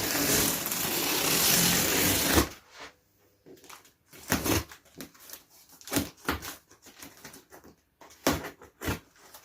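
A cardboard box being opened by hand: a loud, continuous ripping noise for about two and a half seconds, then scattered rustles and knocks as the cardboard is handled.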